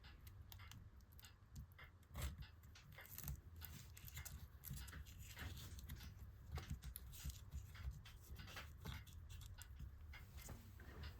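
Faint, irregular small clicks and taps from hands and tools working on laptop parts during reassembly.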